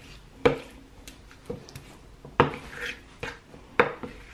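A kitchen utensil knocking against a bowl, with light clatter, while diced pork is mixed in its marinade. There are three sharp knocks, each with a short ring.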